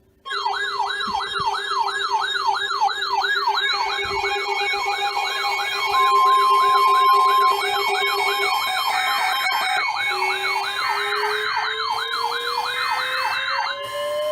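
Several electronic emergency-vehicle sirens sounding together, starting suddenly. A fast yelp sweeps up and down about three times a second, with a quicker high warble above it. A slower wail starts rising about ten seconds in. Most of the sound cuts off abruptly near the end.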